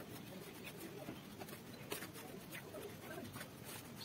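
Metal spoon scraping and clicking against a stainless steel bowl while stirring roasted rice flour with sugar syrup. It is faint, with a sharper click about two seconds in and another near the end.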